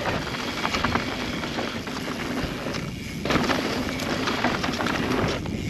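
Transition Spire mountain bike riding fast down a dirt trail: knobby tyres rolling over the ground with a steady rush of wind on the helmet microphone, and frequent short clicks and rattles from the bike, with a brief lull about three seconds in.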